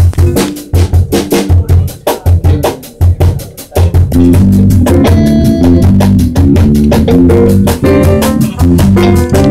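A live jazz drum kit playing alone, with kick, snare and rimshot strokes. About four seconds in, the rest of the band comes in with sustained low and middle notes over the drums, a Latin-jazz groove.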